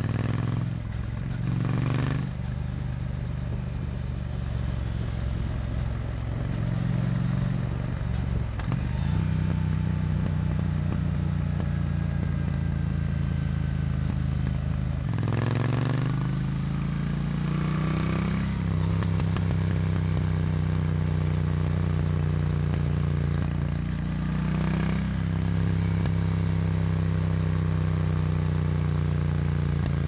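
Triumph Bonneville T100's parallel-twin engine running under way, the exhaust note rising and dropping a few times with throttle and gear changes. For the first half it runs on the stock exhaust. After a sudden cut about halfway through, it runs with a Zard X-pipe decat fitted in place of the catalytic converter.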